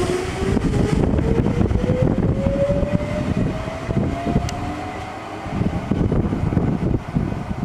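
Ichibata Electric Railway 3000 series electric train accelerating away, its traction motor whine rising steadily in pitch. The whine fades out about five seconds in, leaving the low rumble of the wheels on the track.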